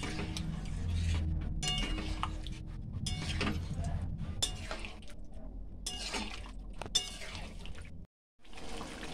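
A metal spatula stirring and scraping thick mutton curry with potatoes in a metal kadai, with scattered clinks against the pan over a steady low hum, as the curry is sautéed on a high gas flame. The sound cuts out briefly near the end.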